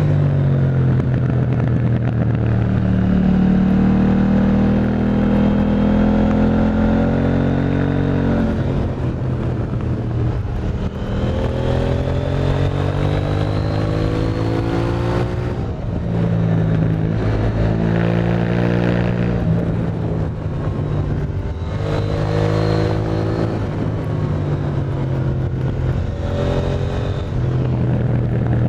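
KTM 890 Duke R's parallel-twin engine with an Akrapovic exhaust, running hard: the engine note climbs in pitch and falls back again about five times over the stretch, with a steadier note in the first few seconds.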